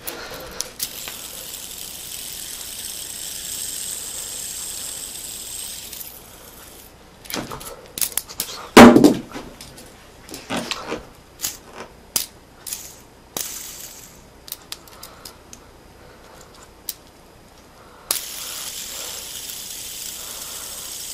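Fidget spinner bearing whirring, a steady high hiss, which stops about six seconds in. Then comes a run of clicks and knocks from handling the spinner, the loudest a single thump about nine seconds in. The whir starts again near the end.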